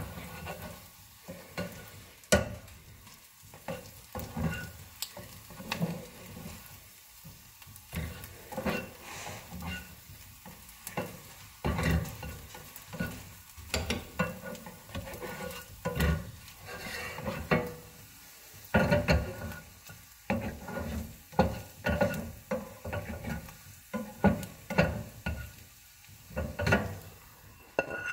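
A utensil stirring and scraping eggs in a frying pan, with repeated irregular scrapes and knocks against the pan over a faint sizzle of frying.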